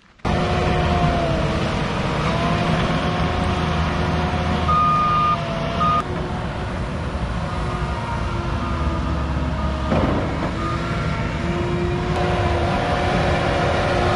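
Tracked skid-steer loader's diesel engine running under load with a steady whine while it pushes a pile of dirt, and an excavator working close by. The sound starts abruptly just after the start.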